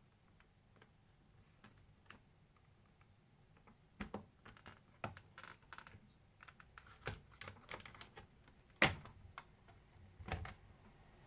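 Scattered small clicks and taps of parts being handled while a Toshiba BJ65/FS is taken apart. They are sparse at first, come thick and fast from about four seconds in, and one sharp click near the end is the loudest.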